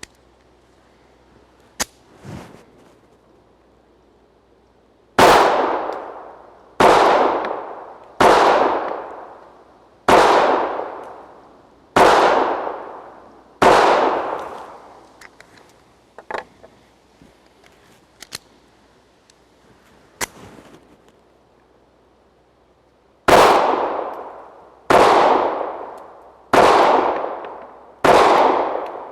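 Colt Mustang Lite .380 ACP pistol firing: six shots about one and a half to two seconds apart, then, after a pause of about nine seconds with a few faint clicks, four more at the same pace. Each shot trails off in a ringing echo lasting about a second.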